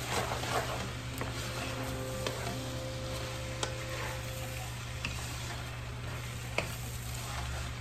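Pancit canton noodles sizzling in a wok while a wooden spatula stirs and tosses them, with a few sharp clicks of the spatula against the pan. A steady low hum runs underneath.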